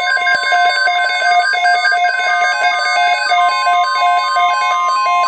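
Electronic alert tones: a fast run of beeps hopping between pitches. About three and a half seconds in, a steady single-pitch alarm tone joins, typical of a NOAA Weather Radio warning alarm tone sounding ahead of a severe thunderstorm watch message.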